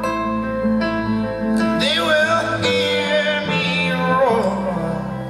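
Acoustic guitar picked in a slow passage of a folk song played live, with brief singing over it around the middle.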